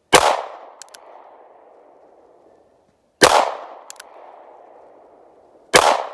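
Three single shots from a North American Arms .22 mini-revolver, a few seconds apart, each sharp report followed by a long fading echo. A faint double click follows each shot.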